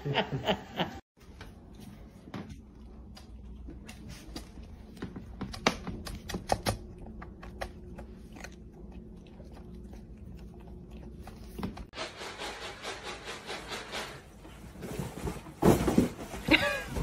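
A cat eating dry kibble from a plastic bowl: irregular light clicks and crunches. Near the end there is a short, louder burst of another sound.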